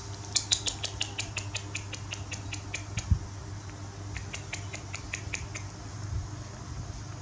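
A monkey giving quick runs of short, high squeaks, about six a second: one run of about two and a half seconds, then a shorter one about four seconds in. A single low thump comes about three seconds in, over a steady low hum.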